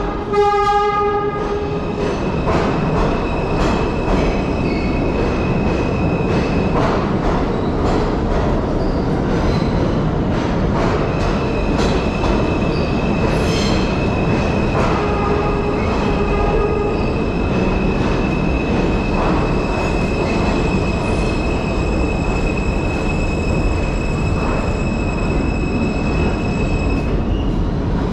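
New York City subway train running with a steady rumble and a long, high, steady wheel squeal through most of it. A horn sounds at the start, and a fainter one about midway.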